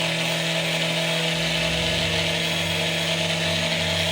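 A power tool's electric motor running steadily at one constant pitch; a deeper rumble joins in a little over a second in.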